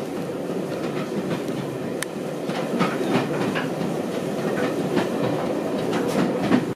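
Heritage railway carriage running along the line, heard from inside the compartment: a steady rumble of the wheels on the track with irregular clicks and clacks over the rail joints.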